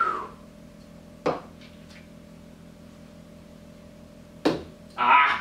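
Urethane skateboard wheel on a fishing line knocking against a wall-mounted metal skateboard truck: a sharp knock about a second in, and a louder one a little after four seconds, followed by a short louder burst near the end.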